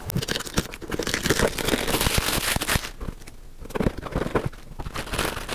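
Plastic wrapping crackling and crinkling as it is pulled off and out of a cardboard box being opened by hand, with a quieter spell a little past the middle.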